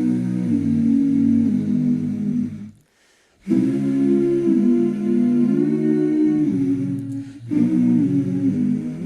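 Background music: the intro of a pop song, a voice humming a slow melody in three phrases with short pauses between them.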